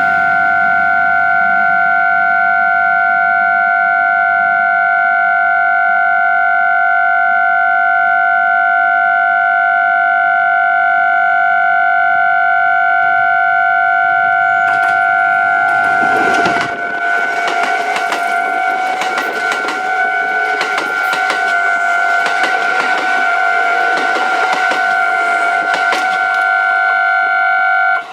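A Japanese railway level-crossing warning bell ringing steadily and loudly. About 16 seconds in, a Kintetsu express made up of 2610-series and 1420-series cars passes over the crossing with rushing wheel noise and repeated clatter from the wheels. The bell stops right at the end.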